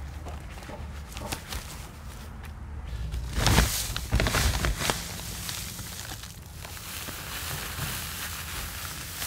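Gloved hands rustling and patting grass clippings and dry straw in a plastic raised-bed tub, right beside a clip-on microphone. The crackly rustling is loudest from about three and a half to five seconds in.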